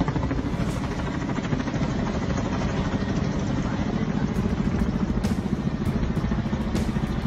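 Helicopter overhead, its rotor beating in a fast, steady chop over the engine noise.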